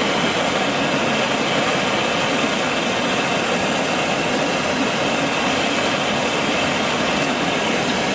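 Homemade propane forge burner, a black iron pipe with a flared nozzle and a 1/32-inch gas jet, burning steadily with an even rushing noise. The gas is at about 7 psi and the burner is drawing air through its drilled holes and making a clean blue flame.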